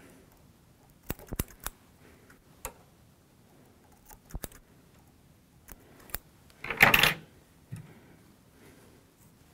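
Scissor blades snipping bucktail hair: sharp clicks, several in quick succession about a second in and a few more scattered after. A louder, longer clatter comes about seven seconds in.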